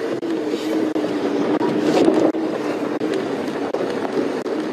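Safari game-drive vehicle's engine idling with a steady low hum.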